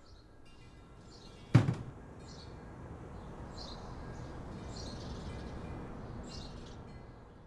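Outdoor ambience: small birds chirping in short calls a handful of times over a low background rumble that swells and then fades. A single sharp thump sounds about one and a half seconds in.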